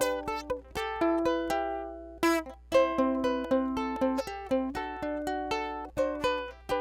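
Background music: a plucked ukulele-like melody with chords, each note striking and fading, at a steady light tempo.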